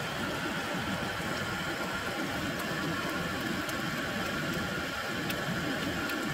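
Brass pressure stove burner running with a steady hiss under a wok, while slices of duck sizzle in the pan, with a few faint ticks.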